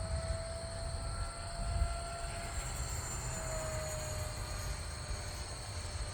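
64mm electric ducted fan of an FMS F-16 RC jet whining in flight, its pitch sliding slowly down as it passes, with wind rumbling on the microphone.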